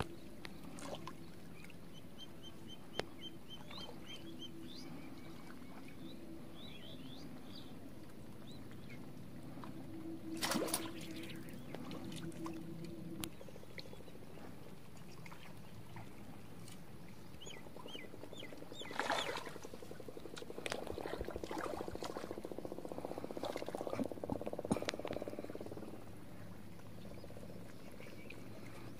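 Frogs calling steadily, with a run of short high chirps in the first several seconds. Two brief loud noises stand out, about ten and nineteen seconds in.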